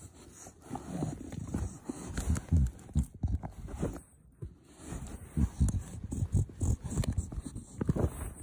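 An animal with its head inside a cardboard box, making a rapid, irregular run of short low puffs and bumps against the cardboard.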